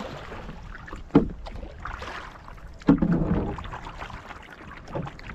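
Wooden double-bladed kayak paddle stroking through the water, with sharp splashes about a second, three seconds and five seconds in over a steady wash of water.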